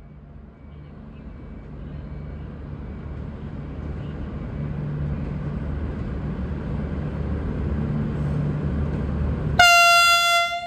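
Coupled V/Line VLocity diesel multiple units departing, their diesel engines' low rumble growing steadily louder as the train draws near. Near the end comes a single loud horn blast of about a second that stops sharply.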